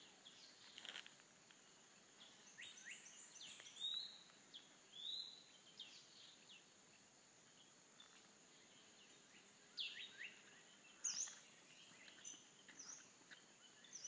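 Forest birds giving scattered short chirps and quick slurred whistles, in a few brief bursts, over a thin, steady high insect whine.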